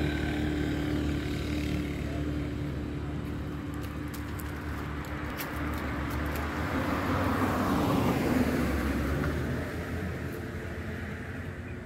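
Road traffic: a steady low rumble, with a vehicle passing that grows louder to a peak about eight seconds in and then fades.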